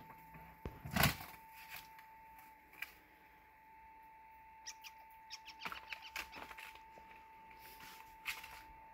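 Scattered rustles and scratchy clicks, the loudest a rustling burst about a second in, then a quick run of clicks in the middle, over a faint steady high whine.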